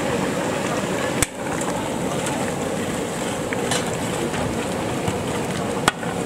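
Steady hiss of a gas burner heating a large aluminium cooking pot, with two sharp clicks, one about a second in and one near the end.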